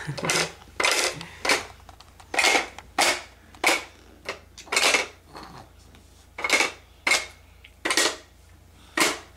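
A toddler puffing loudly through the spout of a plastic sippy cup: a dozen or so short, breathy bursts, irregularly about half a second to a second apart.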